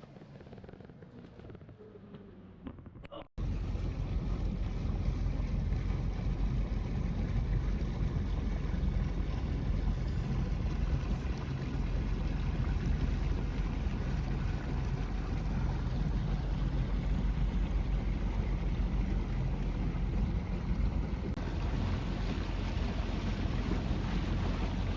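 Motorboat under way: a steady rush of engine and wind noise on the microphone that cuts in abruptly about three seconds in, after a quieter stretch.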